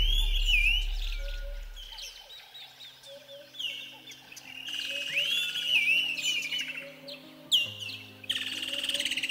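Ambient music of soft sustained low synth notes with bird calls layered over it: whistled calls that swoop up and down, repeating every second or so. A deep bass note at the start fades out, and a fast buzzing trill comes in near the end.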